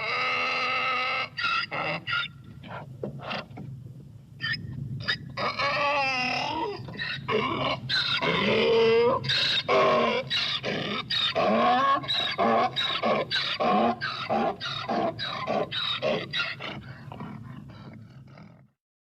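Zebra-type barking calls offered as the extinct quagga's voice. A held, strained call opens, then comes a long run of short, harsh yelping calls at about two to three a second over a steady low hum. The calls stop about a second before the end.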